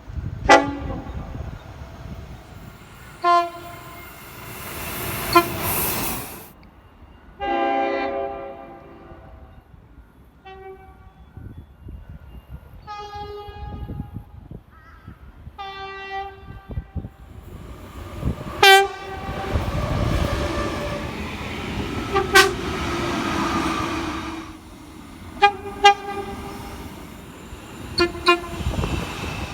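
Train horns sounding a string of blasts, mostly short toots with a longer one about eight seconds in, over the rumble of a train running by.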